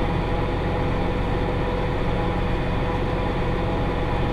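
Massey Ferguson 5610 tractor's diesel engine running steadily under load while pulling a John Deere 468 round baler through hay.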